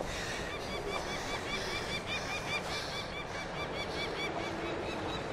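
A flock of birds calling: many short, arched calls overlapping at a few per second, over a steady hiss of outdoor ambience.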